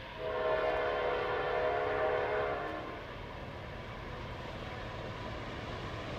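Freight locomotive's air horn sounding one long chord of several tones for about two and a half seconds, from a Norfolk Southern GE Dash 9-40CW leading the train. After it stops, the steady rumble of the approaching train.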